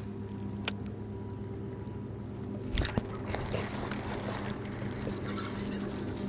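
A hooked bass breaks the surface with a sudden loud splash about three seconds in, then keeps thrashing and splashing as it is reeled toward the boat. Under it runs the steady hum of the boat's electric trolling motor.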